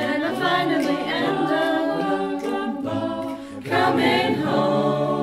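Mixed-voice a cappella choir singing the closing bars of a song, the voices moving in harmony, then settling about three-quarters of the way in onto a long held final chord.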